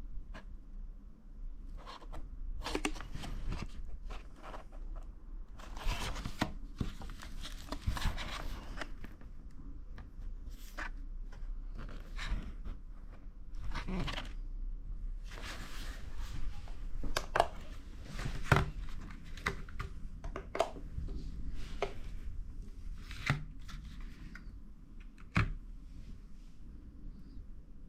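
Packaging being handled and opened: irregular rustling and tearing of cardboard and plastic, with many scattered sharp clicks and taps.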